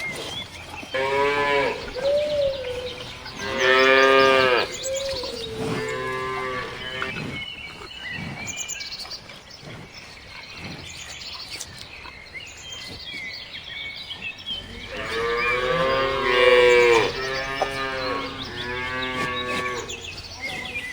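Cattle mooing: a bout of three or so moos in the first seven seconds, a pause, then two more near the end, the first of these the loudest.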